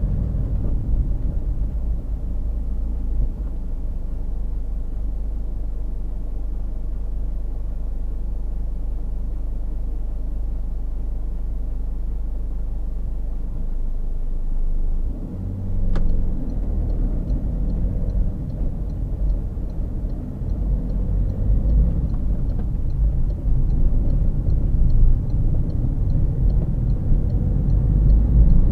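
Steady road and engine rumble of a moving car, heard from inside the cabin through a dashcam's microphone. A single sharp click comes about 16 seconds in, and the rumble grows louder near the end.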